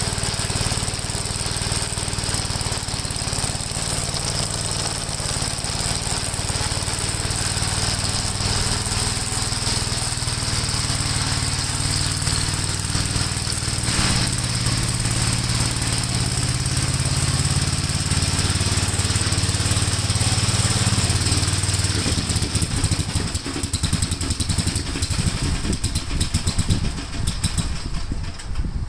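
Gravely walk-behind tractor's single-cylinder engine running steadily under load while driving a sickle bar mower. About three-quarters of the way through it begins to stumble and run unevenly as it runs out of gas.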